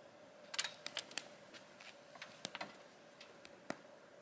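Scattered light clicks and taps, about a dozen at uneven intervals, from someone handling a cloth screen while standing on an SUV's side step and reaching over the roof. A faint steady hum runs under them.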